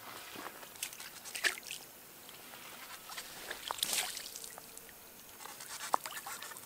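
Landing net dipped in lake shallows and lifted out, with water splashing and dripping off the mesh, loudest about four seconds in, among a few scattered light knocks and rustles.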